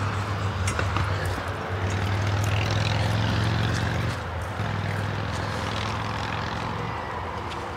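A steady low engine drone that weakens about four seconds in and fades further near the end.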